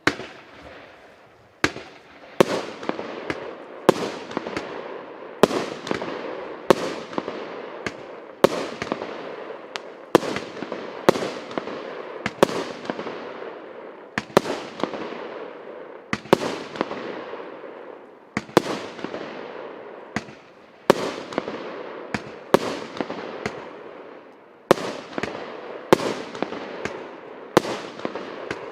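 A 99-shot, 1.25-inch consumer firework battery (Russkiy Feyerverk 'Papa mozhet') firing its shells one after another. Sharp bangs come about one to two a second, and each trails off in a hissing, crackling tail from the bursting stars and strobe effects.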